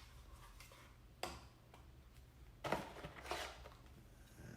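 Plastic accessories and packaging being handled: a sharp click about a second in, then a louder cluster of clicks and rustling around three seconds in, over a low steady hum.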